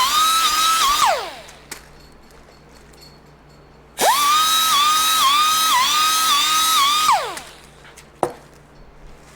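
Small 2-inch air grinder running at high speed in two bursts, shaping seat foam. Its whine dips in pitch each time it is pressed into the foam and falls away as it winds down after the trigger is released.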